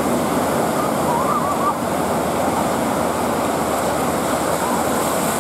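Ocean surf breaking close by: a steady, even rush of whitewater.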